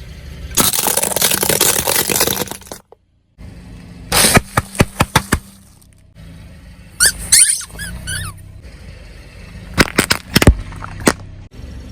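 A car tyre crushing brittle objects, in several separate cuts: about two seconds of dense crunching, a run of sharp cracks and snaps, a brief squeaky warble near the middle, and a few more sharp cracks near the end.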